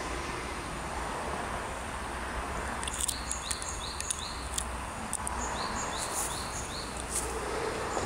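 Outdoor background noise with a steady low hum, and a bird giving two runs of short, evenly spaced high chirps, about three a second, the first about three seconds in and the second a little past halfway. A few light clicks come with the first run.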